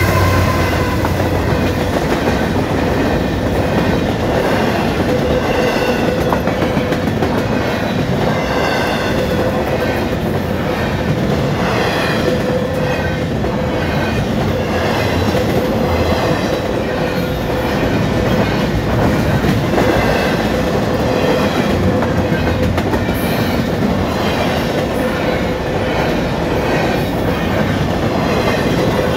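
Double-stack intermodal freight train rolling steadily past at a grade crossing, its wheels clicking over the rail joints in a continuous rumble. A diesel locomotive's engine hum is heard at the start, fading within the first couple of seconds as the container cars follow.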